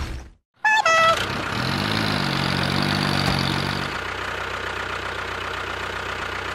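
Two short high beeps, then an engine running steadily; its low hum rises slightly about a second and a half in and settles a little quieter after about four seconds.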